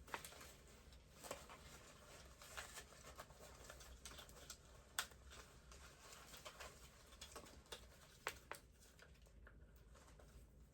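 Faint scattered clicks and rustling of toy packaging being handled as a doll is worked free of its box, with one sharper click about five seconds in.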